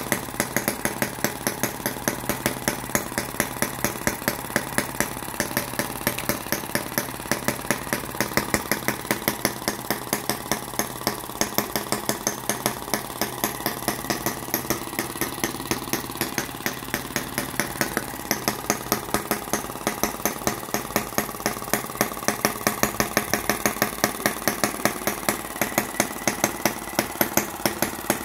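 Small brass single-cylinder model engine (Model M12) running steadily at idle, a quick, even train of sharp firing strokes that goes on without a break.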